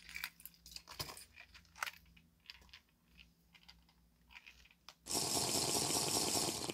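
Light clicks and crinkles of a plastic blister pack being handled, followed about five seconds in by a loud, steady rushing noise lasting about a second and a half.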